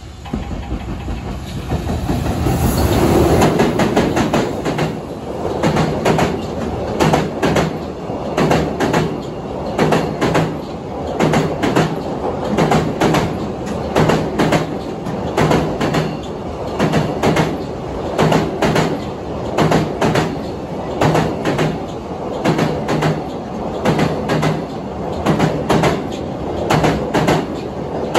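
A train passing close by. It builds up loudly over the first few seconds, then its wheels clack over the rail joints in a steady rhythm of about one clack a second.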